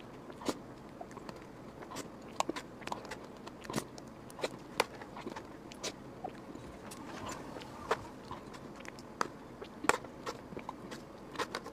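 Close-miked wet mouth sounds of eating soft whipped-cream cake: irregular sticky lip smacks and mouth clicks, a few every second.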